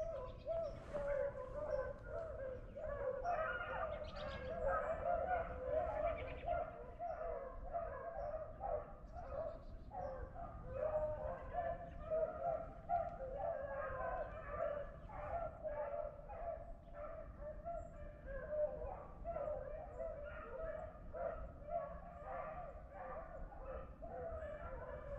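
A pack of hunting beagles baying steadily with many overlapping voices, the sound of the hounds running a rabbit's trail.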